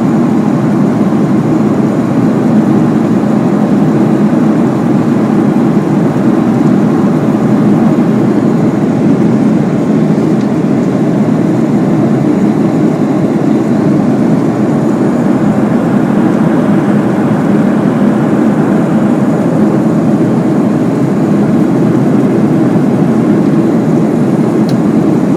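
Steady airplane cabin noise in flight: engine drone and rushing air, an even low rumble that doesn't change.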